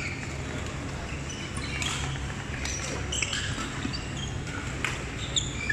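Busy badminton hall ambience: scattered sharp smacks and clicks of rackets hitting shuttlecocks and shoes on the court floors around, over a steady low hum.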